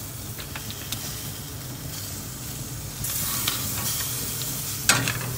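Lobster tails sizzling on a grill grate over direct heat: a steady hiss over a low hum, with a few light clicks early and the sizzle growing louder about three seconds in.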